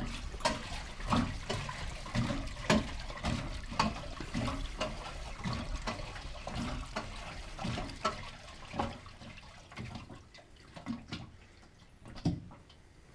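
Fuel gurgling and bubbling in a BMW E38's fuel tank: a quick, irregular run of liquid gulps that thins out and fades over the last few seconds.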